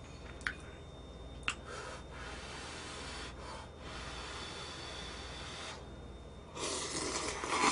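Ramyeon noodles slurped from a bowl: a long noisy slurp near the end, louder than the faint mouth and breathing sounds and two small clicks before it.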